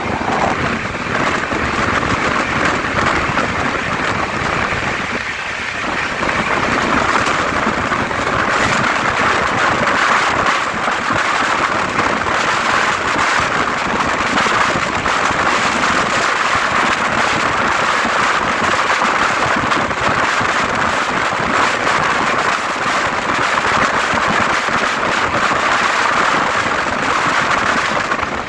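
Indian Railways superfast express train running at high speed, about 120 km/h: a loud, steady rush of wheels on rail and air, with fine rapid clatter running through it.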